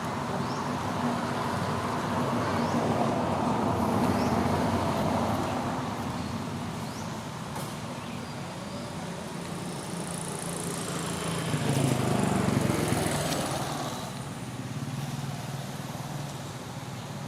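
Motor vehicle noise: a steady engine rumble with a low hum, growing louder twice, around four seconds in and again around twelve seconds in.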